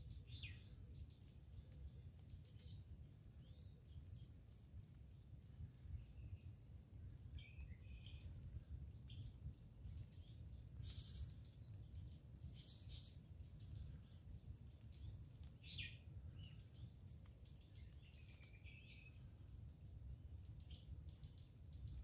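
Quiet forest ambience: faint, scattered bird chirps and calls over a steady high hiss and a low rumble.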